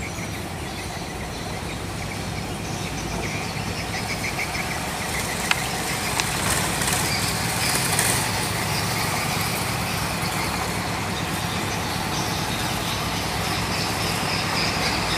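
Diesel engine of an empty logging truck approaching on a dirt road, a steady engine hum that slowly grows louder. There is one sharp click about five and a half seconds in.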